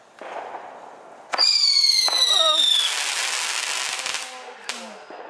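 A consumer firework going off: a sudden loud high whistle about a second in, sliding slowly down in pitch, over a hissing, crackling spray that runs on for a few seconds and fades. It ends with a single sharp crack near the end.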